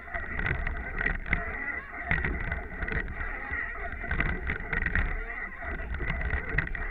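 Wind buffeting the microphone of a camera on the bow of a moving rowing eight, with water along the hull and uneven surges about once a second.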